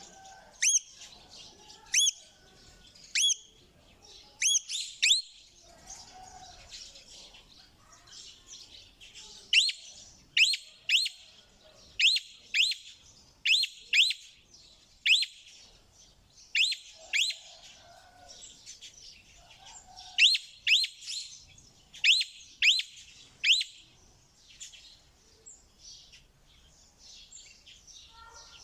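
Parrot giving loud, sharp, high-pitched calls, singly and in quick runs of two to four, over a fainter continuous chattering. The loud calls stop a few seconds before the end, leaving only the faint chatter.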